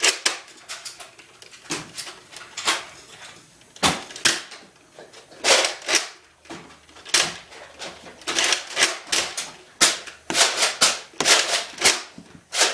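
Nerf foam-dart blasters being fired over and over: an irregular run of sharp clacks and pops, at times several a second.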